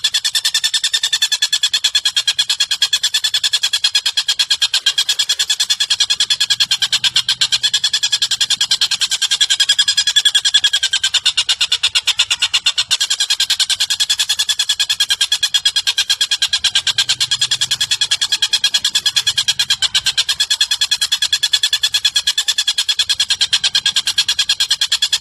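Recorded bird call played as a masteran track: a rapid, unbroken trill of short, clicky notes, many a second, steady in pitch.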